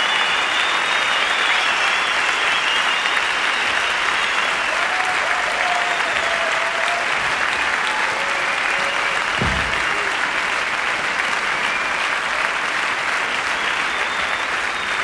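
Large concert audience applauding steadily after the final song, with scattered high whistles and a single low thump about nine seconds in.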